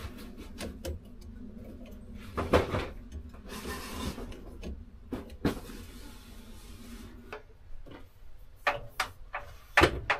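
Knocks, clicks and rubbing from hand-tool work on the valve and pipe fittings above a water heater. There are two harder knocks, about two and a half seconds in and near the end, and a couple of stretches of scraping in between.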